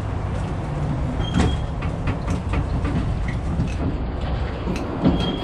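Open-air tram running along: a steady low rumble from its drive and wheels, with frequent rattles and knocks from the carriage and a couple of short high squeaks.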